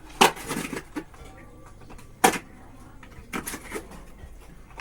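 Cardboard packaging being torn and handled by hand while it is opened: five short sharp rips and knocks, the loudest about a second and two seconds in.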